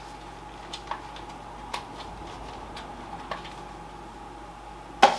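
Steady hum of a desktop PC running as it boots, with a few faint sharp clicks spread out about a second apart and one much louder click near the end.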